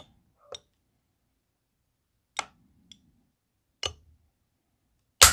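Trigger of an SDS Imports Radikal NK-1 bullpup shotgun being drawn slowly back by a trigger gauge: a few sharp clicks spaced a second or more apart as the notchy trigger's springs pop, then a louder snap near the end as it breaks.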